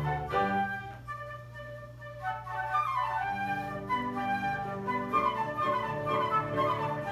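Live classical chamber music: recorder and flute playing over piano with held low notes. About a second in it drops quieter with a falling run of notes, then the wind parts return with quick running notes.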